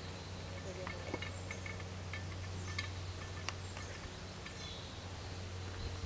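Outdoor ambience: a steady low hum under scattered faint, short bird chips and a few sharp clicks.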